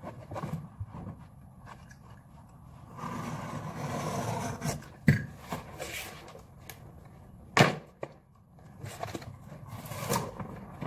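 Carpet tiles being handled and pressed onto wooden stair treads: a scraping rustle of tile against the step a few seconds in, small taps, and two sharp knocks on the wood, the second the loudest.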